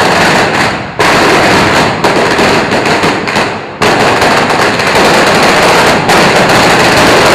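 Firecrackers set off in a long, rapid barrage, a dense continuous crackle of bangs with brief dips about a second in, near four seconds and near six seconds.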